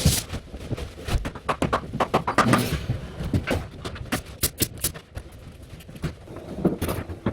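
A rapid, irregular run of sharp knocks and clicks, with a few louder ones near the start and around the middle.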